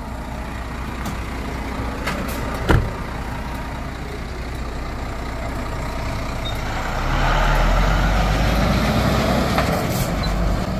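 Scania tractor-trailer's diesel engine running, with a single sharp knock about three seconds in as the cab door is shut. About seven seconds in the engine grows louder and deeper as the truck pulls away.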